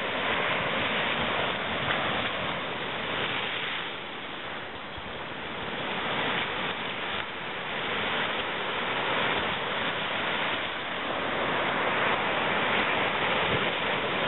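Surf breaking and washing over the rocks at the waterline: a continuous rushing that dips a few seconds in and builds again.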